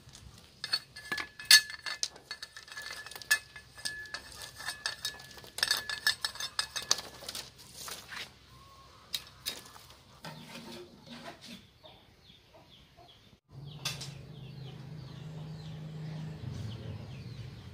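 Metal cleaver striking and splitting thin bamboo stems on a concrete floor: a quick run of sharp knocks with the blade ringing, thinning out after about eight seconds. A steady low hum comes in near the end.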